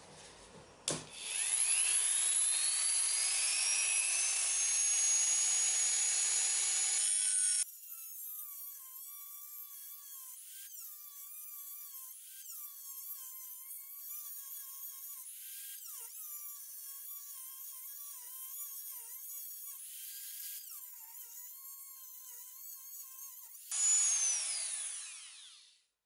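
A Dremel rotary tool with a cut-off wheel. About a second in it switches on and spins up with a rising whine. It then cuts into the steel chain link, and its whine wavers and dips as the wheel is pressed into the metal and eased off several times. Near the end a loud whine falls in pitch as the tool winds down.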